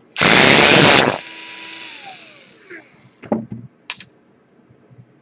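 A small electric power tool runs at full speed for about a second, then winds down with a falling whine. A few light clicks follow.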